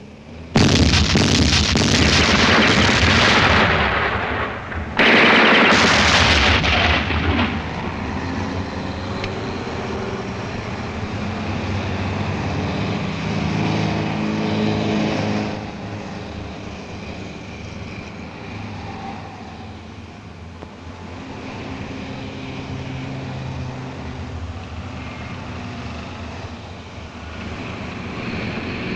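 Two long bursts of rapid, heavy gunfire with blasts on the film's soundtrack, starting about half a second in and again about five seconds in, followed by a lower, steady rumbling din.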